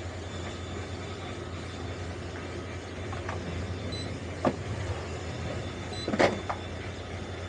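Towboat's engines running at low speed with a steady low hum. A sharp knock comes about four and a half seconds in, and a louder knock a couple of seconds later.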